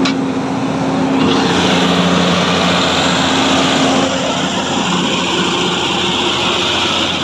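Hyundai 210 excavator's diesel engine running steadily, heard close up in the engine bay, with a loud hiss that sets in about a second in and holds.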